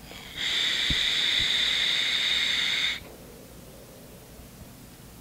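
A long draw on a Horizon Tech Arctic sub-ohm vape tank fitted with a 0.5-ohm coil: a steady hiss of air pulled through the tank while the coil fires. It starts about half a second in, lasts about two and a half seconds, and cuts off abruptly.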